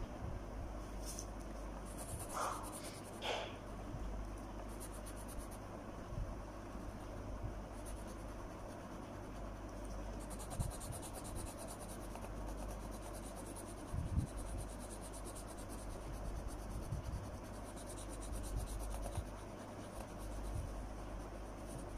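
Pencil strokes scratching on paper as a drawing is sketched. The sound is faint and continuous, with a few soft knocks.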